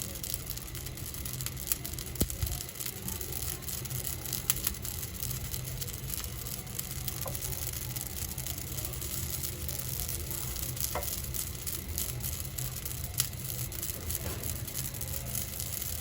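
Carom seeds and chopped garlic roasting in a small non-stick pan over a gas flame, sizzling steadily with a few sharp pops. They are at the stage where they begin to brown and give off smoke.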